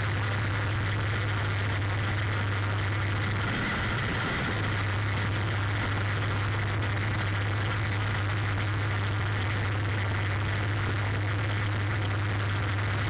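John Deere 3940 pull-type forage harvester, driven from a John Deere 4620 tractor, running under load as it picks up and chops a windrow of hay: a steady low drone under a constant whirring, rattling rush from the pickup and cutterhead. The drone dips briefly about four seconds in.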